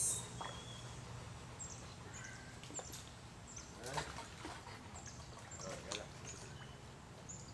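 Short high bird chirps scattered through, over a steady low hum, with a few light water splashes about 4 and 6 seconds in as a Labrador swims at the pool's edge.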